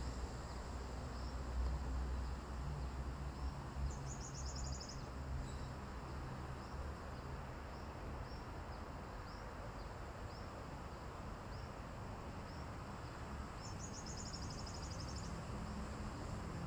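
Insects calling in the trees: a steady high-pitched whine with a faint, regularly repeated chirp, and two short rapid pulsing trills, about four seconds in and again near the end, over a low rumble.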